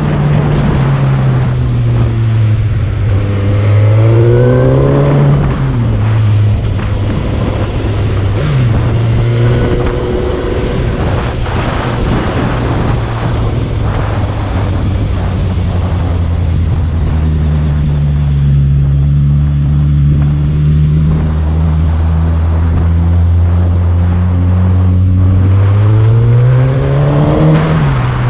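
Motorcycle engine pulling up a steep, winding mountain road. Its pitch rises and falls with the throttle through the bends, holds steady for a long stretch in the middle, and climbs again near the end.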